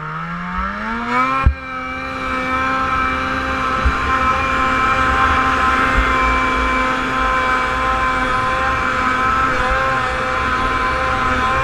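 Snowmobile engine revving up over the first second and a half, then held at high revs with a steady whine as the sled climbs a slope. A sharp knock comes as the revs top out.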